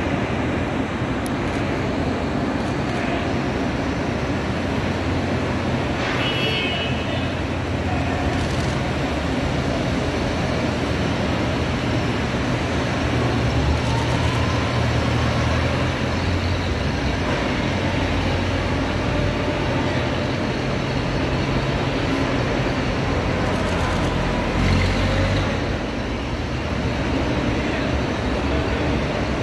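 Vintage cars driving past one after another in a slow procession, their engines making a steady low rumble over road and crowd noise.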